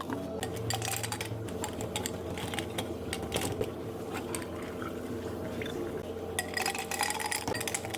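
Cafe counter work: a run of small clicks and clinks over a steady hum, busiest near the start and again near the end.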